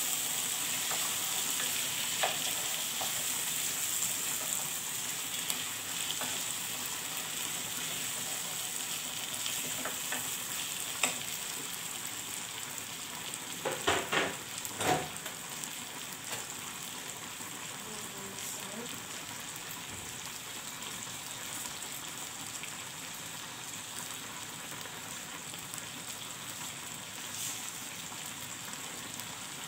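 Diced potatoes sizzling in a pot of sauce, with a wooden spoon stirring and knocking against the aluminium pot in the first half. A few louder knocks come about halfway through.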